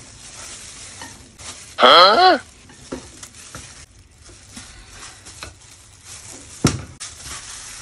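Silicone spatula stirring and scraping a stiff purple dough in a glass bowl, with small clicks against the bowl and rustling plastic gloves. About two seconds in, a short, loud, sliding pitched sound like a brief cry cuts across it, and a sharp tap comes near the end.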